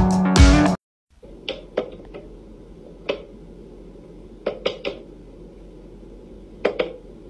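Guitar music cuts off under a second in. Then a wooden whack-a-mole cat toy gives sharp light clacks and taps, singly or two or three in quick succession, as its toy mice pop up in their holes and a cat paws at it.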